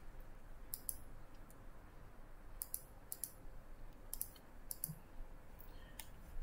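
Computer mouse buttons clicking, faint and mostly in quick pairs, about a dozen clicks in all.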